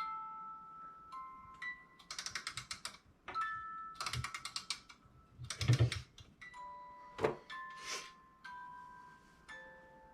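Wind-up music box in a vintage bird Christmas tree ornament playing a slow tune of single chiming notes, with bursts of ratchet clicking from the winding mechanism in between.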